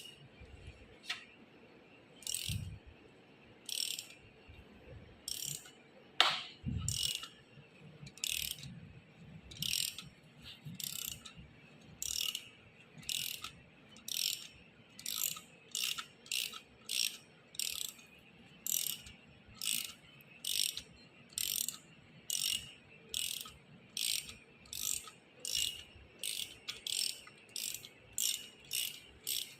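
Ratchet wrench turning the forcing screw of a bearing puller: a short burst of clicks with each stroke, the strokes about a second and a half apart at first and quickening to under a second toward the end. One sharp knock about six seconds in.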